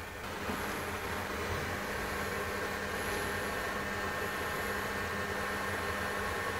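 Electric drive of a robotic exoskeleton joint prototype running: a steady mechanical whine with several fixed tones, and a thin high whine that comes and goes about once a second as the joint swings.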